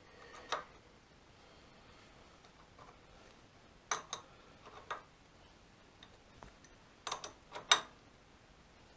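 Sharp metallic clicks and ticks from a hand tap being turned with a tap wrench to start a quarter BSF thread in a metal bracket. A single click comes early, then a few in a short cluster about four seconds in, and a louder cluster near the end.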